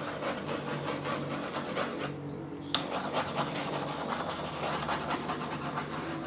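Handheld gas torch flame hissing steadily as it singes the fine hair off a scalded piglet's skin. The hiss cuts out about two seconds in, then after a sharp click about half a second later the flame hisses again.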